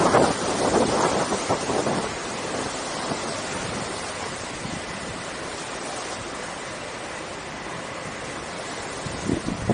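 Water rushing steadily as the Petitcodiac River tidal bore and incoming tide pour upriver. Gusts of wind buffet the microphone in the first two seconds and again just before the end.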